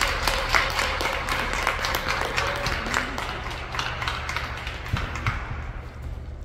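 Spectators clapping, a scattered round of applause that thins out and fades near the end, over a steady low hum.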